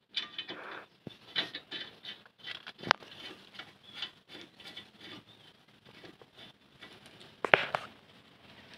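Brake caliper and pads scraping, rubbing and clicking against a new brake disc as they are worked into place by hand, with a sharp knock about three seconds in and a louder clunk near the end.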